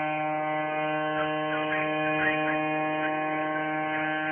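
Ship's whistle of the ferry MV Mayne Queen sounding one long, steady blast: a single low pitched tone held at an even level.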